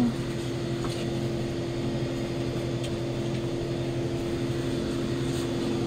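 Steady machine hum of grocery-store equipment: several low tones held at a constant pitch, with a few faint clicks.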